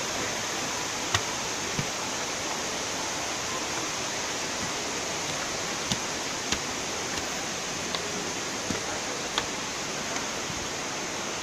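Steady rushing water noise of a waterfall, with a few faint taps of footsteps on stone steps scattered through it.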